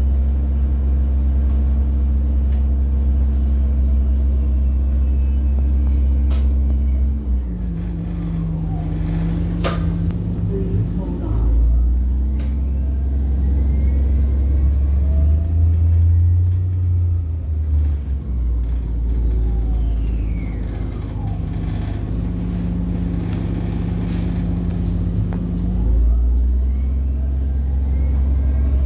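A 2007 Orion VII 30-foot transit bus's engine running under way, with a steady low rumble. About seven seconds in the engine note drops, then it rises and falls as the bus slows and pulls away again.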